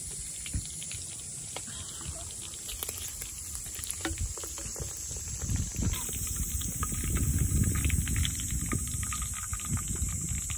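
Breaded lamb chop cutlet deep-frying in oil in a cast iron skillet: the oil sizzles and crackles with many small pops, and it gets louder about halfway through.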